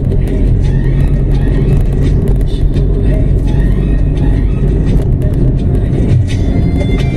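Steady road and engine noise of a moving car, heard from inside the cabin: a loud, even low rumble.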